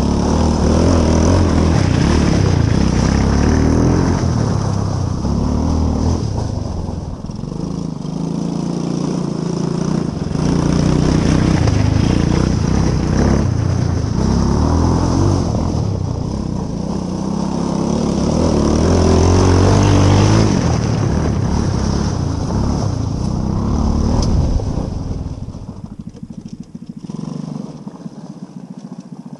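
Coolster Mini Jeep's 125cc engine revving up and down as it drives, swelling louder as it comes near and fading as it moves off, several times over. It drops quieter and uneven near the end.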